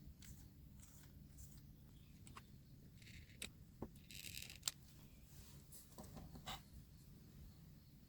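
Faint crafting handling noises: two short scrapes and a few sharp clicks over a low steady hum, the loudest click a little under five seconds in.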